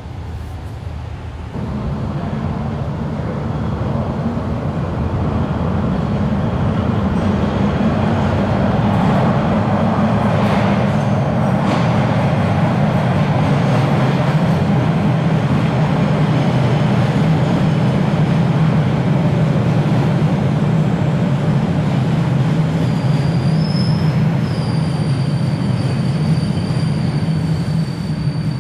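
MBTA Red Line subway train pulling into an underground station. The low rumble of its wheels and motors builds over several seconds and then holds. Near the end a high, steady squeal of the wheels and brakes joins in as the train slows along the platform.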